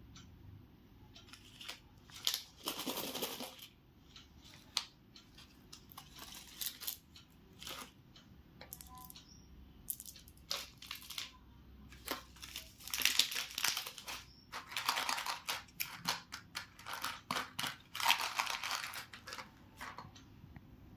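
Chocolate wrappers being crinkled and torn open, in bursts of rustling several seconds apart, with small sharp clicks in between.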